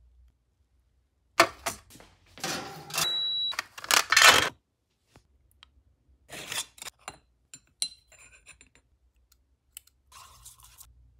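Handling noises from small craft materials and tools: a few short noisy bursts in the first half, the loudest about four seconds in, with a brief high tone near three seconds, then softer bursts and scattered clicks.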